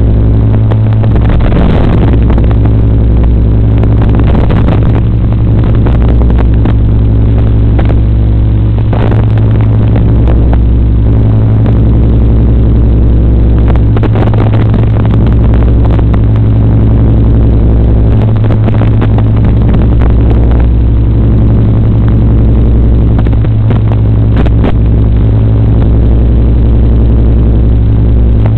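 Loud, steady low hum with a stack of overtones that barely changes pitch, broken by brief crackles every second or so, picked up on the FPV quadcopter's recorded feed.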